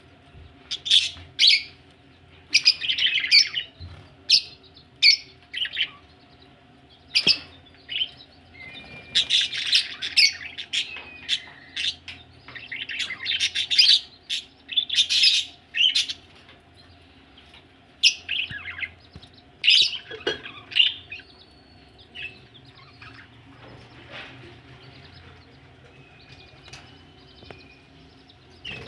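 Budgerigars chirping and chattering: short, sharp high calls in quick clusters, busiest over the first sixteen seconds or so, another flurry around twenty seconds, then only a few faint calls.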